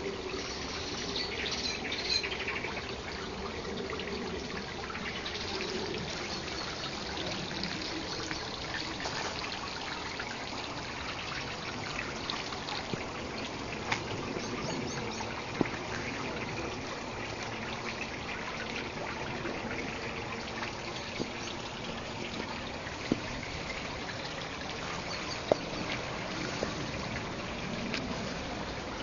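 Garden water feature trickling steadily, with a few sharp ticks now and then.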